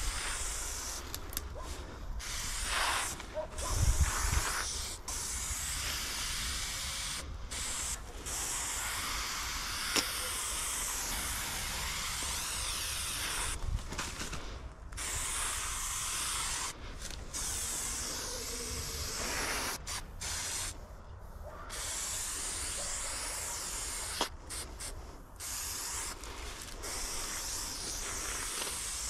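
Aerosol spray paint can hissing as paint is sprayed in long strokes, broken by brief pauses between strokes.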